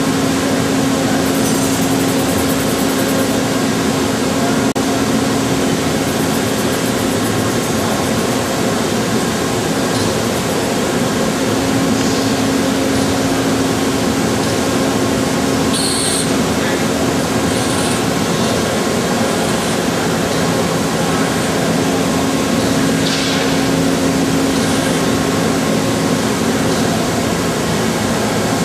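CNC lathe running: a steady mechanical hum with a constant low whine, with a few short high hisses partway through.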